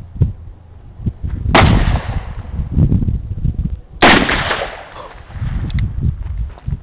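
.44 Magnum revolver fired twice, about two and a half seconds apart, each shot a sharp crack followed by a short trailing echo.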